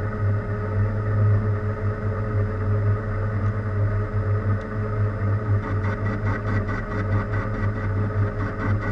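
Machine tool running with a steady hum. About halfway through, a fast rough rattle joins it, as from cutting metal.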